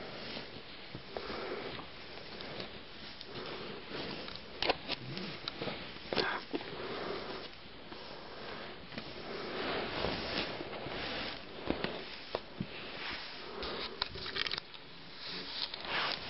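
Fuzzy sock being stretched and pulled over a leg cast: uneven rustling and rubbing of fabric against the cast, with a few sharp taps and clicks.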